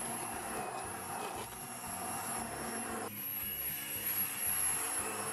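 Hand blender running steadily in a tub of shredded paper and water, its blade churning the mix into paper pulp, with a thin high motor whine on top. The churning sound thins out about three seconds in.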